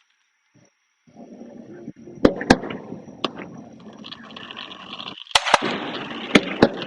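Fireworks going off, starting about a second in: about seven sharp bangs, some in quick pairs, over a steady crackling hiss.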